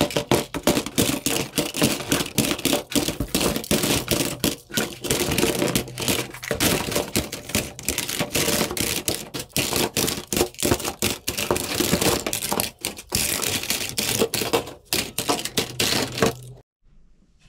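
Plastic toy guns clattering into a cardboard box one after another, a dense, uneven run of knocks and rattles of plastic on plastic and cardboard. It cuts off suddenly near the end.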